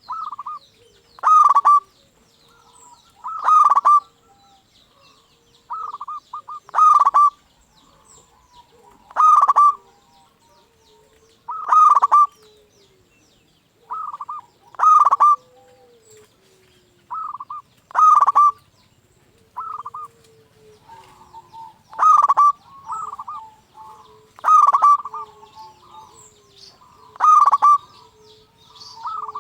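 Zebra dove (perkutut) cooing: short loud bursts of quick coo notes repeated about every two and a half seconds. Fainter high chirps fill the gaps.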